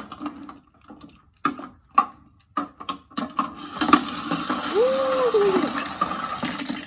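Plastic Tomica car-storage bucket toy: a few sharp plastic clicks as small toy cars are set on its top, then, from about three seconds in, a steady mechanical whirring rattle as the cars run round inside it.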